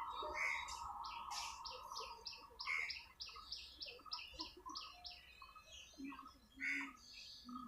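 Birds chirping: a fast run of short repeated chirps, about four a second, with scattered other calls around it. A faint steady hum fades away in the first second.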